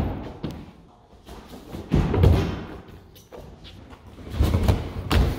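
Dull thuds of a barefoot person landing front handsprings: one at the start, another about two seconds in, and a cluster near the end as the body hits a padded crash mat propped against a wall.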